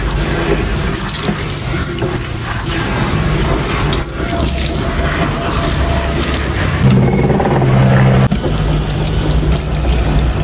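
Tap water running and splashing into a stainless steel kitchen sink as the sink is rinsed and scrubbed.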